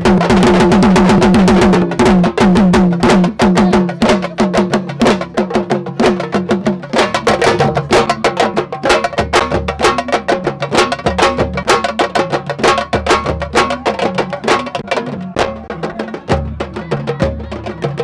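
Sabar drums playing a fast, dense rhythm for dancing. A held pitched tone sounds over the drumming for roughly the first seven seconds.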